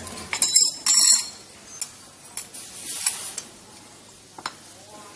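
Clinks and scrapes of hand work with brass embossing dies and a knife on steel plates and a stone workbench: a loud scraping rasp about half a second in, then a few separate sharp clicks.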